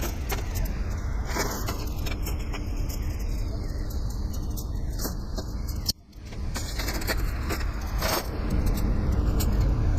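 Steady low vehicle rumble with light metallic jingling and clicking, like keys or loose metal rattling. The sound cuts out briefly about six seconds in.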